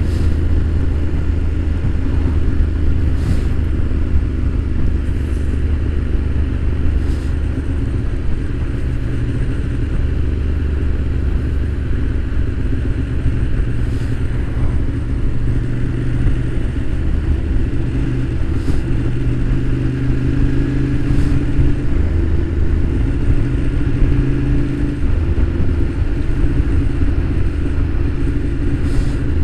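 Motorcycle engine running at a steady cruise, heard from the rider's seat with road and wind noise. Its pitch holds nearly level, with small rises and dips.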